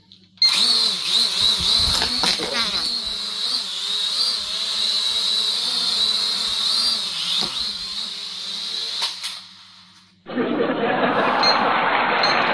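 Small toy quadcopter drone's propellers whirring, the high whine wavering up and down as the throttle changes, with a few clicks, then dying away about ten seconds in. After that comes a harsh, even rushing noise.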